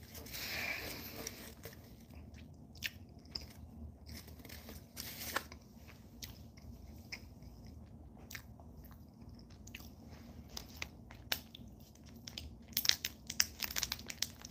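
Faint chewing of a soft cream puff, with small scattered mouth clicks. Near the end comes a quick run of crinkles as the plastic wrapper is handled.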